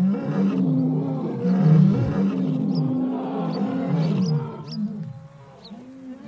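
Lionesses calling in a series of loud, moaning roars, one call answering another: urgent calls summoning the pride for help. The calls grow quieter about five seconds in.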